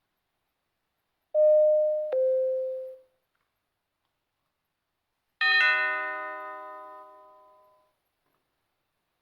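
Doorbell ding-dong: two tones, the first higher and the second lower, lasting about a second and a half together. A few seconds later comes a single brighter chime with many overtones, which rings out and fades over about two seconds.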